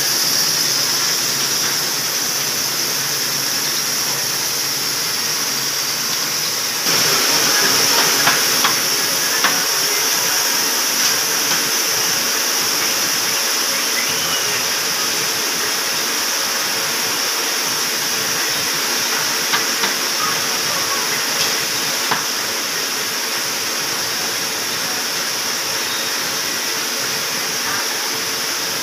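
Carton pasting machine running steadily: a mechanical hum with a strong high hiss. About seven seconds in the sound steps up a little, and a few light clicks follow.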